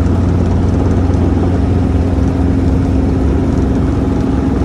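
Steady, loud low engine drone with a constant hum, unchanging throughout.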